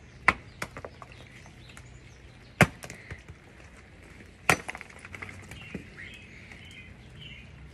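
Chunks of ice being struck with a hammer on a woven mat: a few sharp cracking hits, the loudest about two and a half seconds in and another about four and a half seconds in, with small clinks of ice pieces between.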